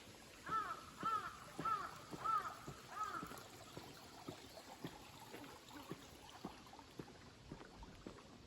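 A crow cawing five times in quick succession, each caw rising and falling, over the soft, regular steps of someone walking.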